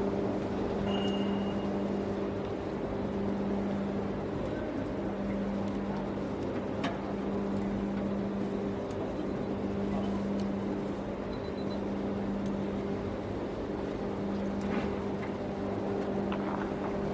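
Steady electrical hum with an overtone an octave up, over a broad, even rumble of melt-shop noise: a 5-ton induction furnace in operation melting alloy steel.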